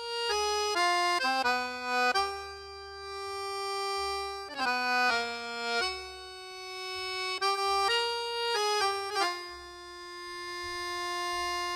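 Background music: a slow melody of held notes broken by short quick runs, over a soft low accompaniment.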